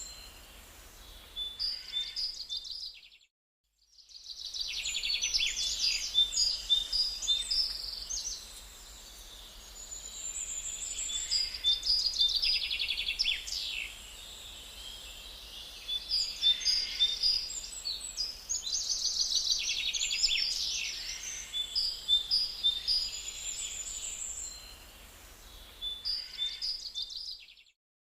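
Several songbirds singing and chirping in a forest, a dense mix of quick trills and whistled notes. The sound cuts out completely for about a second, about three seconds in.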